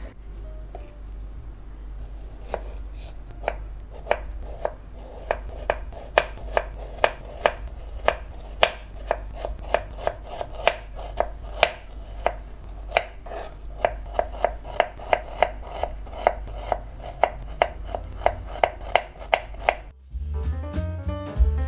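Kitchen knife slicing an onion on a plastic cutting board: a steady run of sharp knocks, about two or three cuts a second, each with a short ring from the board. Near the end the cutting stops and piano music starts.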